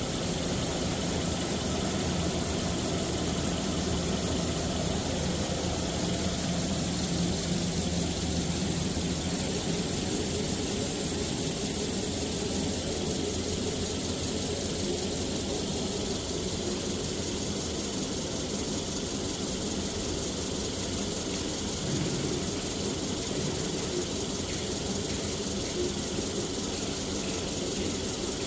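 Tissue-paper rewinding machine for toilet rolls and kitchen towels running at speed: a steady machine hum with a constant high-pitched whine over it, the whine stepping up slightly in pitch about ten seconds in.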